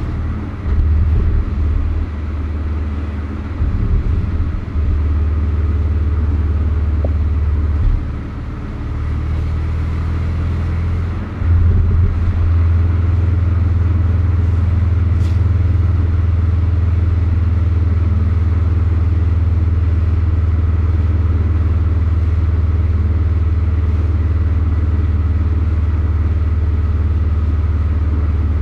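Porsche 718 Boxster's turbocharged flat-four engine running under way at low revs. Its level steps up and down several times over the first dozen seconds as the throttle changes, then it runs steadily.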